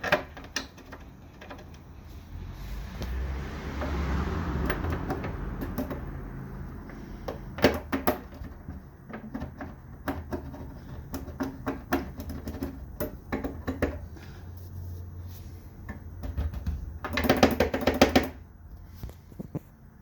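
Ferrari 458 Challenge EVO running, with a low steady hum under an irregular metallic clatter from the rear. The clatter comes in loud clusters about 8 seconds in and again near the end. This is the rattling noise whose cause is being hunted.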